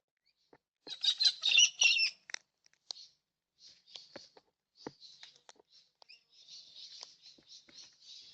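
Birds chattering and chirping, high-pitched, with a loud burst of chatter about a second in and then scattered softer calls. Short sharp taps come through now and then.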